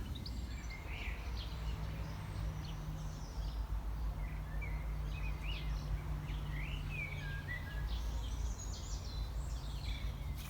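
Small songbirds chirping and twittering in short quick notes, over a faint steady low hum and some low rumble.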